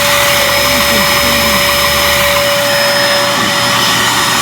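Dirt Devil Featherlite bagless cyclonic upright vacuum cleaner running steadily with a high whine, its suction working. Its lower hum drops away a little over halfway through.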